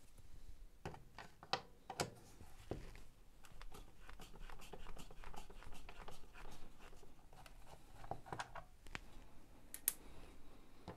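Faint clicks and scratchy scraping of a hand screwdriver turning screws out of the plastic housing of a Makita DX01 dust extraction unit, with a few light knocks as the case is handled.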